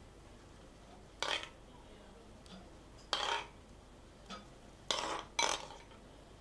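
Metal spoon knocking and scraping against ceramic bowls as crème fraîche is spooned into beaten eggs: about five short clinks, the last two close together near the end.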